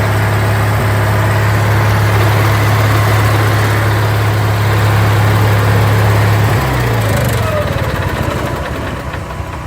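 RV's onboard generator running steadily at constant speed, a strong low hum. The hum fades away about seven seconds in.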